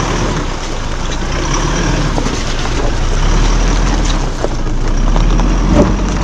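A vehicle driving over a rough, rocky dirt track: a steady engine and tyre rumble, with a few short knocks and clatters from stones, one about four and a half seconds in and a sharper one near the end.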